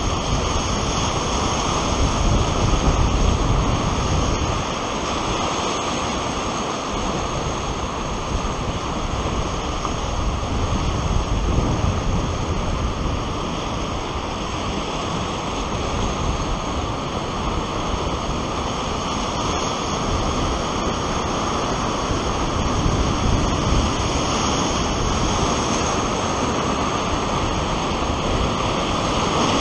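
Rio Grande whitewater rapid at about 2,000 cfs rushing and churning around a raft's bow: a steady, loud rush of water.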